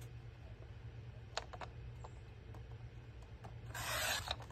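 Paper being cut during crafting: a few light clicks, then near the end a short rasp of the paper cut, over a low steady hum.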